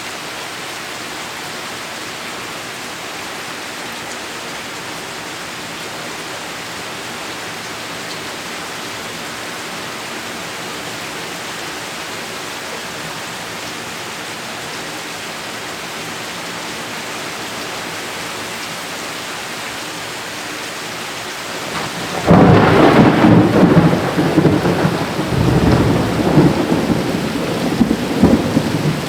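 Heavy rain falling steadily, then about 22 seconds in a loud clap of thunder breaks out and rumbles on, rising and falling, over the rain.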